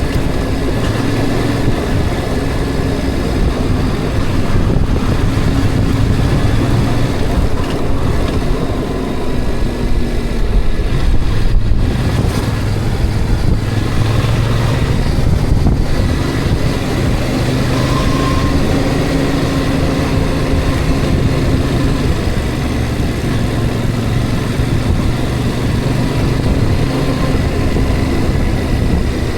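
A road vehicle on the move: steady engine drone and road rumble, with the engine note rising and falling slightly as it drives.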